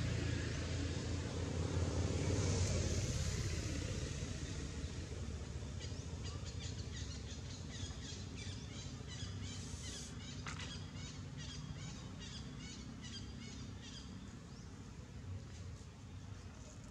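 Low engine rumble that is loudest at the start and slowly fades away over the following seconds. From about six seconds in, a run of short high chirps repeats at an even pace for several seconds.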